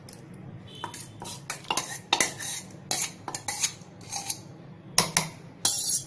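Steel spoon scraping and clinking against stainless steel bowls while scooping soft boiled dal from one bowl into another: irregular clinks and scrapes, the loudest about five seconds in.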